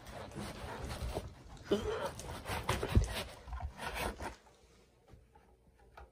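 Power supply unit being worked out of a tight cutout in packing foam: rubbing, squeaking and scraping of foam against its casing, with a knock about three seconds in. The handling stops about four seconds in.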